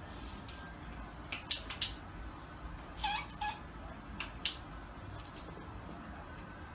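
A cat giving two short, high-pitched meows about three seconds in, with a few brief clicks before and after.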